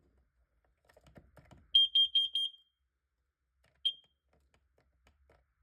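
First Alert CO400 carbon monoxide alarm sounding its test: four quick, loud, high-pitched beeps in a burst, then a single short beep about a second and a half later. A few soft clicks come just before the beeps.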